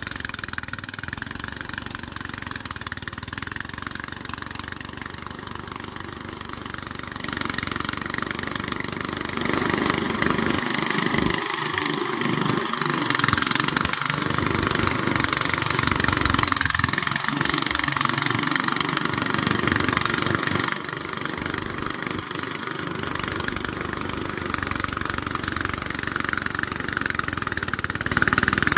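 A motor engine running steadily. It grows louder about seven seconds in and again around ten seconds, then eases off slightly a little past twenty seconds.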